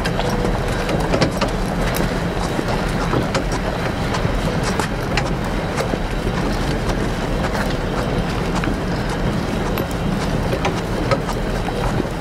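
Steady wind and surf rushing on an open beach, with scattered light clicks and knocks.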